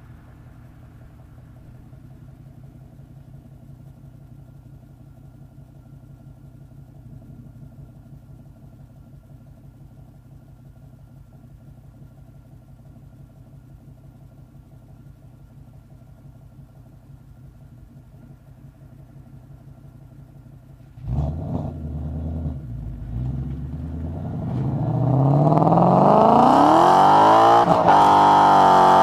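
2012 Mustang GT's 5.0 V8 through a cat-deleted, X-piped JBA axle-back exhaust, idling steadily for about twenty seconds. Then it suddenly gets loud as the car pulls away, and the engine pitch climbs under hard acceleration, with a brief drop in pitch near the end before it climbs again.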